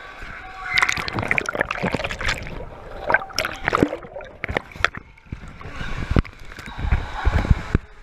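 Pool water splashing and sloshing against a camera as it dips in and out of the surface, turning to muffled gurgling while the camera is underwater.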